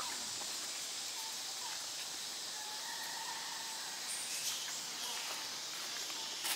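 Steady high-pitched insect chorus droning, with faint short whistled calls over it and a couple of sharp clicks about four and a half seconds in and near the end.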